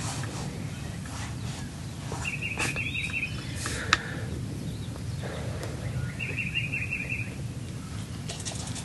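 A small bird's short trill of about ten quick notes on one high pitch, heard twice, over steady low background noise. A single sharp click comes a little before the middle.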